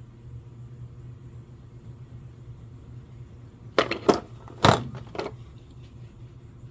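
A few sharp clacks and knocks of hand tools being handled and set down, bunched together about four to five seconds in, over a steady low hum.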